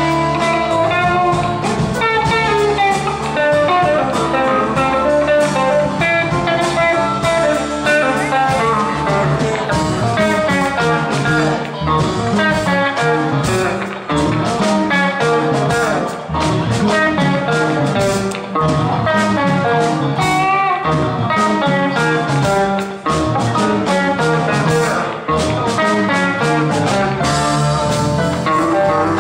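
Live band playing a blues-rock jam: an electric guitar plays busy lead lines over bass guitar and a drum kit.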